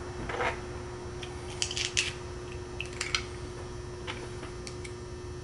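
Small metal hardware (washers, springs, bolts and nuts) clicking and clinking against each other and the workbench as it is picked up and handled, a few scattered sharp clicks, over a steady faint hum.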